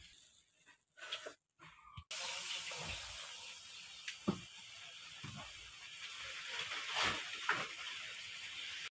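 Hot oil sizzling steadily around a batter-coated rosette mold frying a fuljhuri pitha; the sizzle starts suddenly about two seconds in, with a few soft knocks along the way.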